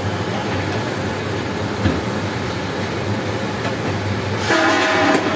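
Nacho chips deep-frying in hot oil in a brass kadhai over a gas burner: a steady sizzling rush over a low hum. Near the end a short held tone sounds for under a second.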